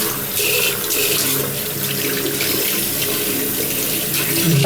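Tap water running steadily into a sink, rinsing a laptop keyboard.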